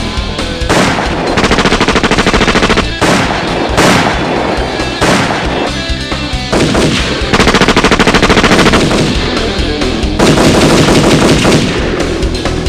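Loud, heavy, distorted rock music. Three times it breaks into about a second and a half of rapid, evenly spaced hammering, like fast drumming or automatic fire.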